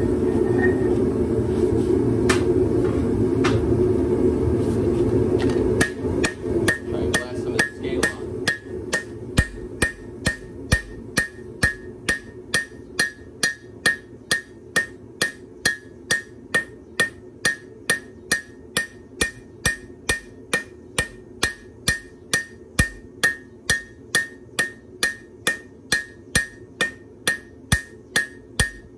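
Hand hammer forging red-hot leaf-spring steel on an anvil: a long run of even blows, a little under two a second, each with a bright ring from the anvil. For about the first six seconds a steady low roar comes before the blows begin.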